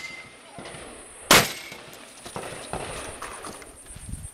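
A single shotgun shot about a second in, followed by a short high ring, then a few lighter clicks and knocks.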